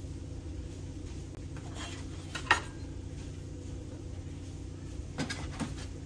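A wire whisk and kitchenware knocking against a ceramic mixing bowl. There is one sharp clink about two and a half seconds in and a few lighter knocks near the end, over a steady low hum.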